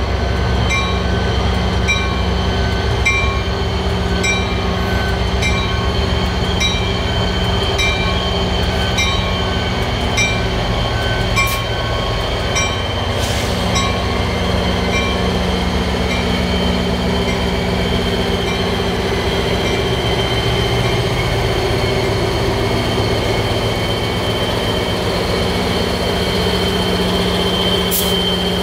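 MARC GP39H-2 diesel locomotive pulling in and standing close by. Its engine drones steadily, with a high steady whine over it. The locomotive bell rings in an even beat, about one and a half strikes a second, until about eleven seconds in.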